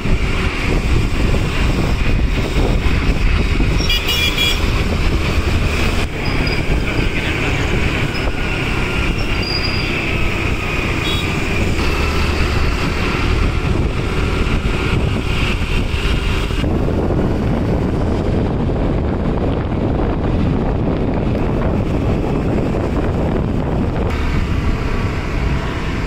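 Road traffic: a steady din of vehicle engines and tyres with a heavy low rumble, and a short horn toot about four seconds in.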